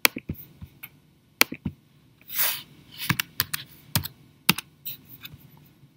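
Computer mouse clicks and keyboard keystrokes: sharp, irregular clicks with a few quick runs, and a brief hiss about two and a half seconds in.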